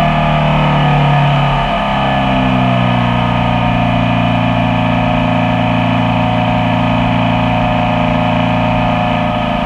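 Honda Civic Type R's K20 four-cylinder engine held at high revs, about 3,000 rpm, sounding really terrible. Concrete has been poured into it and the red oil warning light is on. The revs sag a little about two seconds in, then hold steady.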